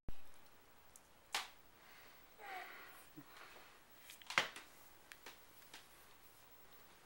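A baby sucking its thumb: a few sharp clicks and one brief, soft whimper.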